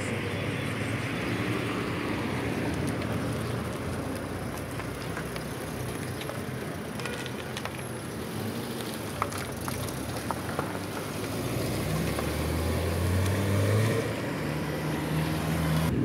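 A motor vehicle's engine running with a steady hiss of road noise. The engine hum grows louder about three-quarters of the way through.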